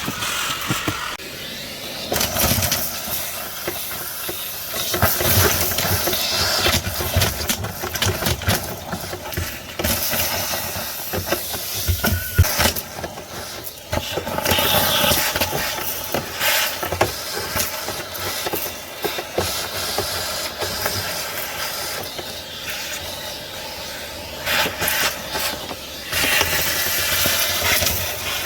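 Vacuum cleaner running, sucking a mouse nest and debris out from behind the dashboard; its rushing noise rises and falls as the nozzle moves, with many small clicks and rattles of debris going up the hose.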